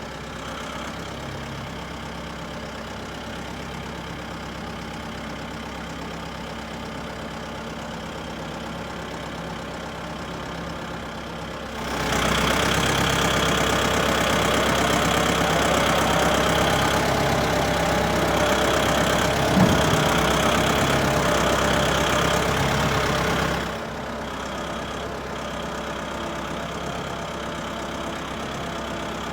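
Farm tractor engine running steadily. About twelve seconds in it gets louder for roughly twelve seconds, as if throttled up or working, then settles back to the lower level.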